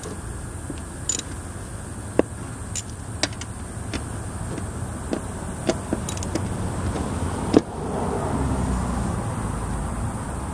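Socket wrench with an extension loosening the 10 mm seat nuts on a scooter frame: scattered sharp metal clicks and clinks, about one a second, with the loudest near the end, over a steady low background hum.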